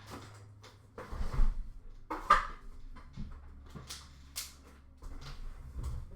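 Hockey card packs and cards being handled on a table: irregular crinkling and rustling of wrappers, with a few knocks. The loudest strokes come about a second in and just after two seconds.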